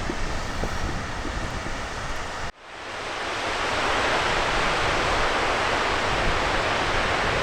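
Wind buffeting the microphone. After a sudden cut about two and a half seconds in, the steady rush of a river's flowing water builds and holds.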